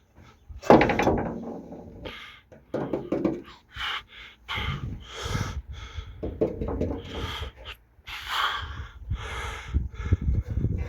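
A run of irregular knocks and clattering, like objects being handled and set down, the loudest a rattling bang about a second in.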